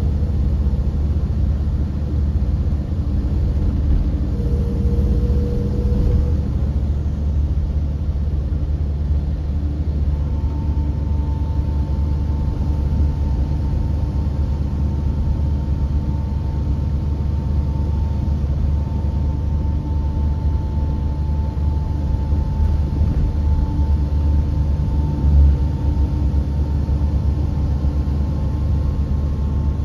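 Volvo B7R coach on the move, heard from inside the passenger cabin: a steady low diesel engine and road rumble, with a faint steady whine that comes in about ten seconds in. A single knock stands out about 25 seconds in.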